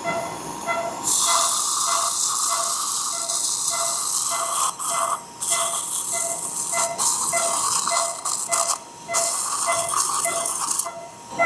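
Loud hiss of surgical suction drawing at the cervix while the excision bed is cauterised to stop bleeding. It starts about a second in and drops out briefly a few times, over an electronic beep repeating about twice a second.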